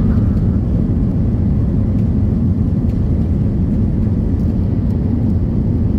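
Steady, loud low rumble inside the cabin of an Airbus A330-300 airliner rolling along the ground after landing.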